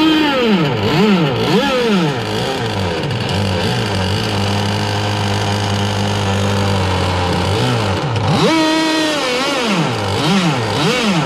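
Small two-stroke engine of an RC boat running and being blipped: its pitch rises and falls in quick revs, settles to a steady idle for several seconds, then climbs to one longer high rev about two-thirds through before more short blips.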